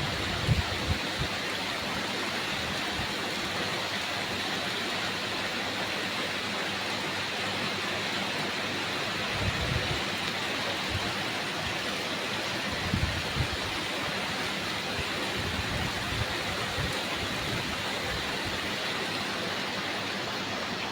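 Steady rain falling, an even hiss, with a few brief low thumps near the start and again around the middle.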